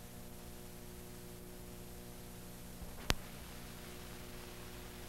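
Steady electrical hum under a hiss, the background noise of an old film soundtrack before the jingle starts, with one sharp click about three seconds in.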